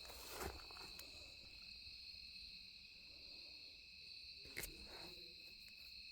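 Crickets chirring steadily in a faint, even, high-pitched chorus. A couple of faint short snaps, about half a second in and again about two-thirds of the way through, like footsteps or twigs underfoot.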